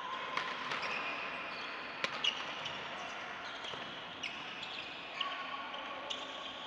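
Badminton rackets striking shuttlecocks in sharp, irregular pops, with court shoes squeaking on the floor between the hits.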